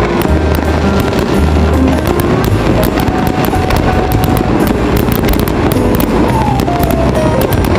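Fireworks going off in a dense, continuous barrage of bangs and crackles over a low rumble.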